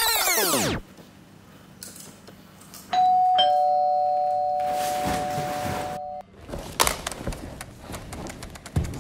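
Two-tone ding-dong doorbell chime about three seconds in, a higher note and then a lower one, ringing for about three seconds before it cuts off. Before it, a loud sweeping whoosh sound effect ends just under a second in.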